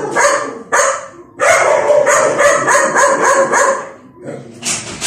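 A dog barking: a couple of barks, a short pause, then a fast run of about nine barks in quick succession, with a few weaker ones near the end.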